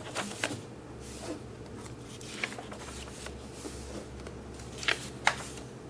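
Paper instruction booklet being handled and its pages turned: soft rustling with a few faint crisp ticks, over a low steady hum.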